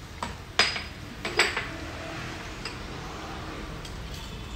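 Metal ladle clinking against the side of a stainless-steel soup pot as it is worked through chicken broth: three sharp clinks in the first second and a half, then a few fainter taps.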